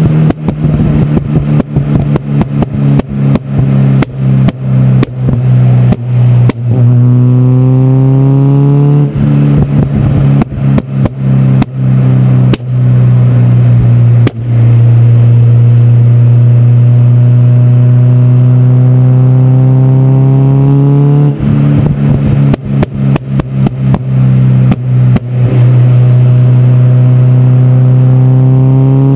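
Renault Clio Sport 172's 2.0-litre four-cylinder heard right at the tailpipe of its decatted, unsilenced KTEC exhaust: the engine note rises on several pulls, and between them the exhaust crackles and pops in rapid runs on the overrun. Loud.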